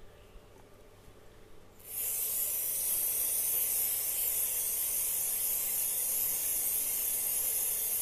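Aerosol chain cleaner sprayed onto a motorcycle chain in one long, steady hiss that starts suddenly about two seconds in.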